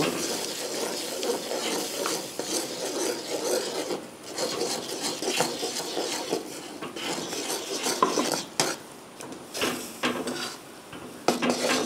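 Flat metal ladle stirring and scraping flour into hot water in an iron kadai, rasping against the pan in irregular strokes as the dough comes together, with a few knocks of the ladle on the pan about eight seconds in.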